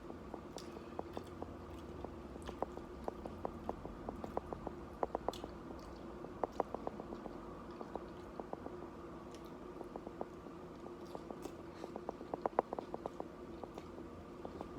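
A person chewing nachos made with corn tortilla chips close to the microphone: a run of small, irregular crunching clicks. There is a steady low hum underneath.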